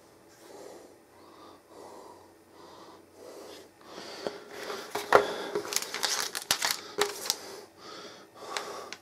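Handling noises: a tablet and its packaging being moved about on a wooden table. Soft rustles first, then a run of small clicks and taps in the second half.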